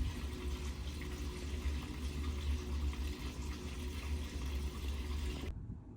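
Steady running water, cutting off abruptly about five and a half seconds in.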